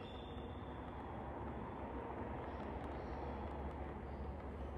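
Steady low hum of room tone in a large gym hall, with no distinct knocks or voices.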